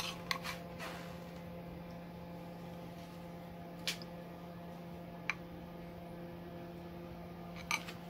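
A metal spoon clicking and tapping lightly against a bowl and tray while tomato sauce is spooned out: a few quick taps at first, then single ones every second or two, over a steady low hum.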